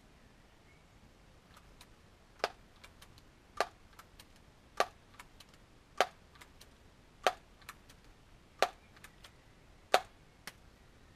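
Daisy PowerLine 901 multi-pump air rifle being pumped: seven sharp clacks of the forearm pump stroke, evenly spaced about one and a quarter seconds apart, with lighter clicks between them.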